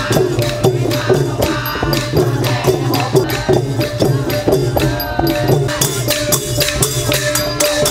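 Traditional Thai folk ensemble playing lively music: a quick, steady beat of small cymbals and hand percussion over a sustained drone.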